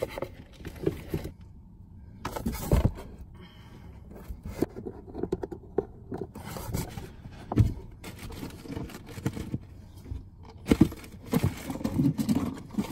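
Handling noises as a plastic HVAC recirculation-door actuator is fitted back into place and screwed down: irregular scrapes, clicks and knocks of plastic and a screwdriver, busier near the end.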